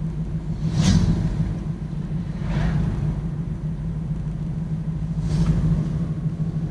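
Van driving along a road, heard from inside the cabin: a steady low engine drone and road rumble, with three brief louder whooshes, about a second in, midway and later on.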